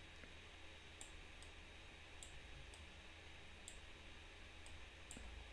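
Faint clicks of a computer mouse and keyboard, about eight or nine, spaced unevenly over near silence.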